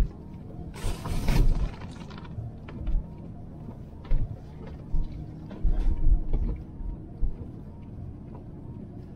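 Inside the cab of a 2020 Toyota 4Runner crawling through deep snow: the engine runs low under repeated thumps, knocks and creaks from the body and suspension. There is a brief hiss about a second in.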